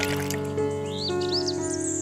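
Background music of held notes changing every half second or so, with a few quick high rising chirps about a second in.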